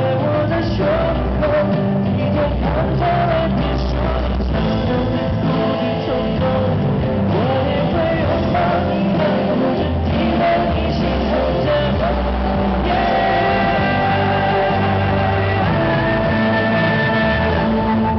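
Male singer singing a Mandopop song live into a handheld microphone over instrumental accompaniment, amplified through the hall's speakers.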